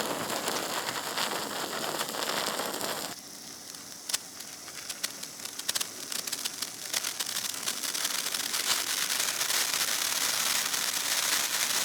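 Something burning, hissing and crackling: a dense hiss for the first three seconds, then after a sudden drop, crackling that grows denser and louder.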